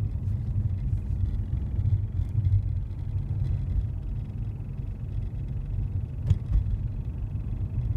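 Low, steady driveline and road rumble heard inside the cabin of a Hyundai Genesis at about 25–30 mph, the speed range where a driveline noise from below the glove box console occurs. A brief knock comes a little after six seconds in.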